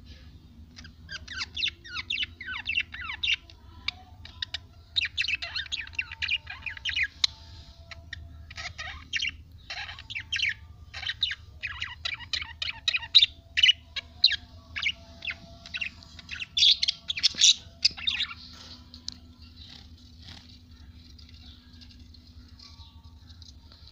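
Several budgerigars chattering and chirping in quick, high warbling bursts that thin out after about nineteen seconds, over a steady low hum.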